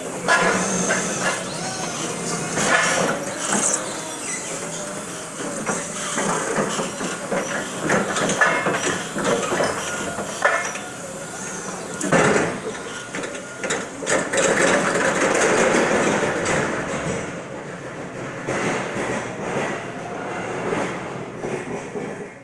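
Crown stand-up reach truck working in a warehouse aisle: steady mechanical noise from its electric drive and hydraulics, with frequent knocks and rattles and a wavering whine.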